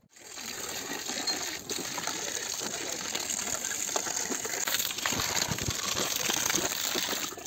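Water running from a hose and splashing into a precast concrete ring pit: a steady rushing noise with small splashes and ticks.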